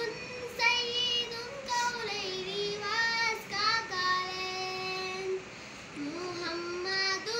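A young girl singing an Urdu naat alone, with no instruments, in drawn-out phrases whose pitch slides into each note, with one long held note near the middle.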